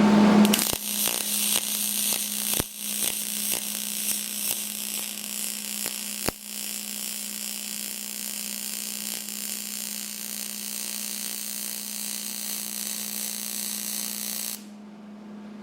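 MIG welding arc on aluminum from a Hobart Spoolrunner 100 spool gun: a steady buzzing hiss that starts with a few sharp pops in the first several seconds and then runs evenly until it cuts off near the end, when the trigger is released at the end of the bead. A steady low hum runs underneath.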